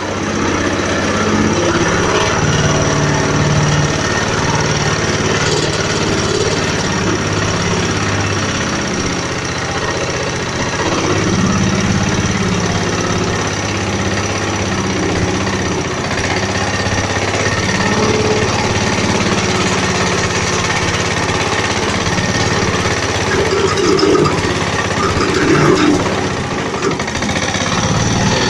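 High-speed diesel engine of a pagong (turtle tiller) hand tractor running under test, its pitch rising and falling a few times as its speed changes.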